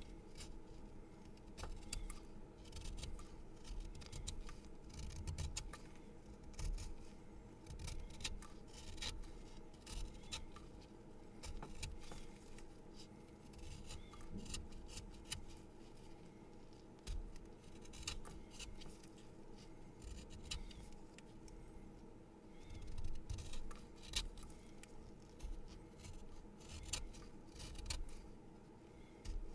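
A pencil being sharpened: a run of short, irregular scraping strokes of the blade against the wood and lead.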